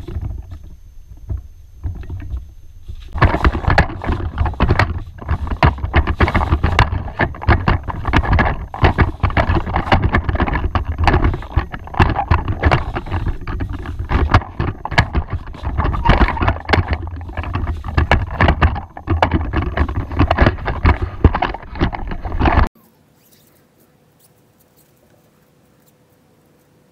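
Coleman instant tent's fabric rustling and flapping as it is handled, with wind buffeting the microphone and knocks from the handheld camera. It cuts off abruptly a few seconds before the end, leaving faint quiet.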